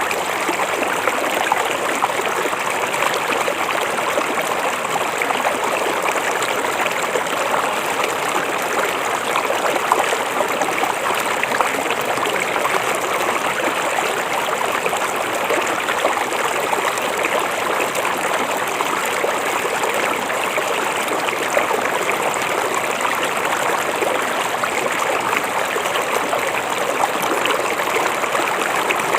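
River water flowing and babbling steadily, a continuous even rush with a fine trickling texture.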